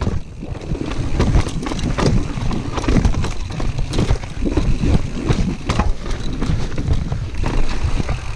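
Santa Cruz Heckler mountain bike clattering and rattling over a rocky stone-pitched trail at speed, a continuous rumble of tyres and wind on the camera microphone broken by many sharp knocks as the wheels hit rocks.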